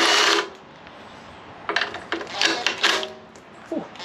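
Cordless power tool running in short bursts as it backs out the bolts of a Ford 302 small-block's mechanical fuel pump: one burst ending about half a second in, then three more quick bursts a little later.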